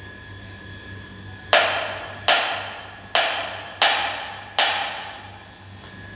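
Five sharp knocks on a bare engine cylinder head, evenly spaced about one every 0.8 seconds, each ringing out briefly.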